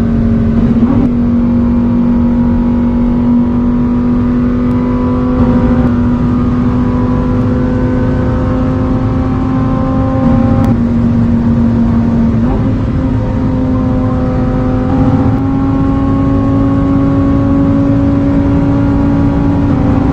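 Lamborghini Huracán STO's 5.2-litre V10 running steadily at mid revs. Its exhaust note holds one strong pitch that creeps slowly upward, with small jumps and drops in pitch every few seconds.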